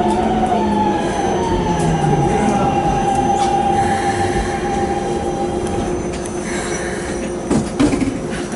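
Keikyu New 1000 series train's Siemens GTO VVVF inverter and traction motors whining under braking as the train slows into a station: several tones slide down in pitch and fade out about six seconds in, with a thin high squeal above them. A few short clunks come near the end as the train stops.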